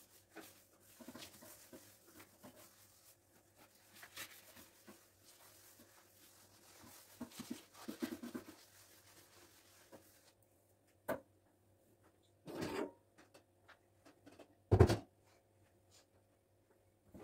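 A sponge wiping a granite countertop: faint rubbing with small knocks, louder for a moment about seven seconds in. In the second half come a sharp click, a short clatter and then one loud, deep thump, the loudest sound, as something is set down hard.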